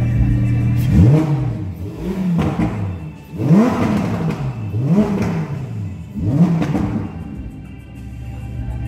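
Lamborghini Huracán Evo's 5.2-litre V10 idling and revved while standing still, five quick throttle blips, each rising and falling in pitch, the third the loudest.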